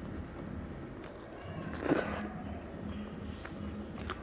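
Close-miked eating by hand: chewing and mouth noises with small clicks as fingers gather rice on a steel plate, and one louder sharp sound about two seconds in, over a low steady hum.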